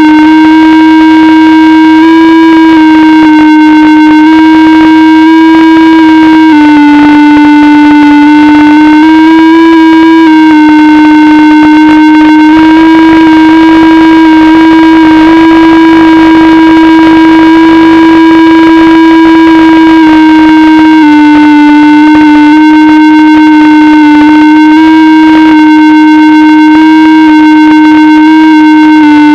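Loud, steady whine of an FPV drone's motors, one buzzing tone whose pitch shifts slightly up and down every few seconds as the throttle changes.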